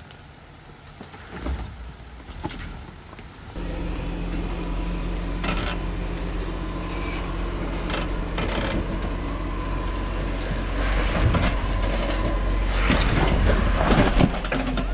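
A vehicle engine running steadily on an off-road trail, with scattered knocks and clatter; it starts abruptly a few seconds in, after a quieter stretch.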